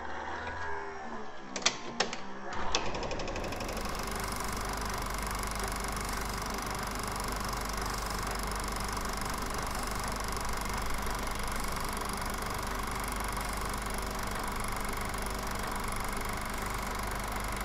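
A few sharp clicks, then from about three seconds in a steady, rapid mechanical clatter with a low hum that runs on evenly.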